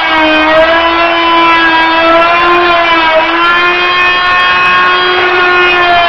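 Hyper Tough 2.1-amp oscillating multi-tool running with a scraper blade, a loud, steady, high-pitched buzzing whine. Its pitch sags briefly about half a second in and again around three seconds in as the blade bites into linoleum backing and glue on the wooden subfloor.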